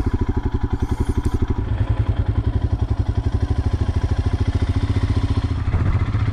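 Royal Enfield Himalayan's single-cylinder engine running as the bike is ridden slowly. It gives a steady beat of closely spaced exhaust pulses that grows a little louder near the end.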